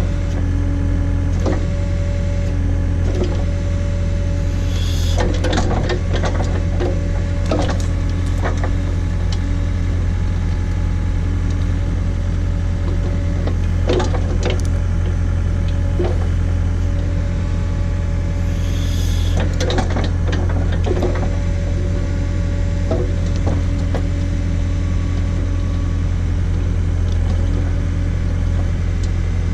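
John Deere 317 skid steer engine running steadily while it powers a Davis D100 backhoe attachment digging out a tree stump. Scattered knocks, clanks and cracks of the bucket working at the roots come in clusters, about five to nine seconds in and again around twenty seconds in.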